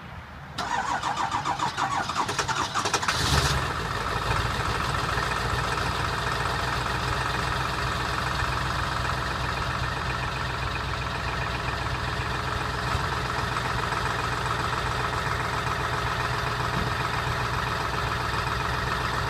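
Ford 7.3 L Power Stroke V8 turbo diesel in a 2002 F-350: the starter cranks it for about three seconds, it catches with a loud burst and settles into a steady idle. A cold, hard start after sitting a week, on injectors the owner says are bad.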